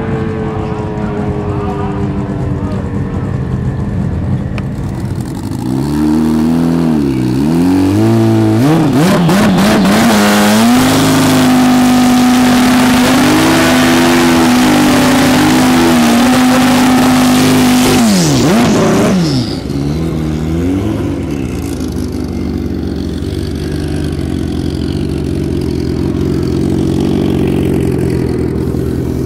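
Turbocharged Suzuki Hayabusa drag bike engine blipped several times, then held at high revs for about seven seconds during a burnout with the rear tyre spinning. It drops off sharply, gives a few more blips and settles to a lower steady run.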